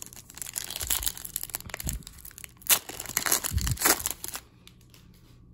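Foil wrapper of a hockey card pack being torn open and crinkled by hand, a dense crackling that stops about four seconds in.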